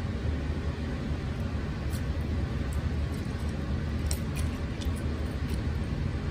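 A steady low rumble of background noise, with a few faint crackles and ticks of crushed ice as red shiso juice is poured over it in a glass.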